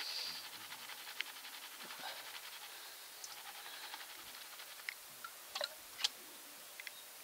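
Water swishing and washing in a plastic gold pan as it is shaken and dipped in a tub of water, fading over the first few seconds, with a few light ticks later on.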